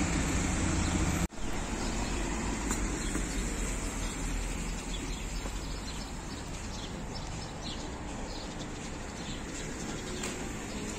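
Outdoor street ambience with steady traffic noise, which changes abruptly about a second in. Birds chirp faintly in the second half.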